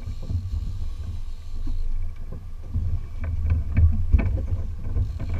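Steady low rumble of a centre-console fishing boat on open water, with scattered small knocks and clicks.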